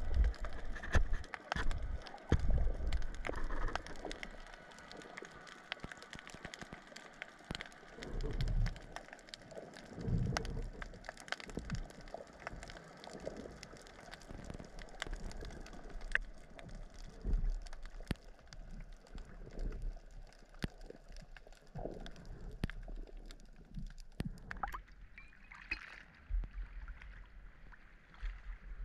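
Underwater sound picked up by a camera in a waterproof housing: muffled water noise with low thumps and a steady scatter of small clicks and crackles. Near the end the camera breaks the surface and the water sloshes around it.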